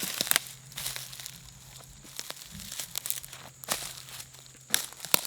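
Rustling and crinkling with scattered sharp clicks and snaps, from saddle-hunting gear being handled and packed up.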